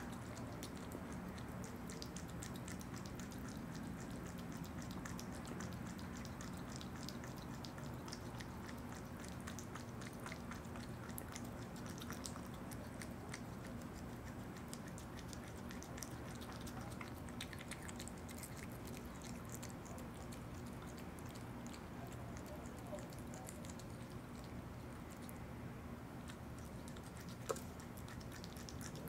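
Opossum eating yogurt: a steady run of small chewing clicks over a low hum, with one sharper click near the end.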